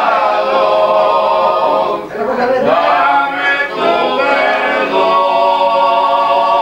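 A group of men singing a murga carnival song unaccompanied, holding long drawn-out notes. There is a short break about two seconds in, then the voices slide up into the next held phrase.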